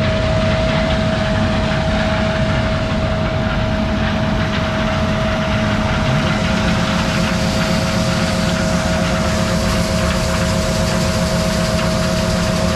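Heavy farm machinery running steadily during corn harvest, a constant engine drone with a steady whine held over it.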